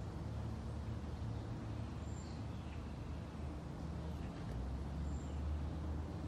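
Rolls-Royce Silver Cloud II V8 engine idling steadily with a low, even hum.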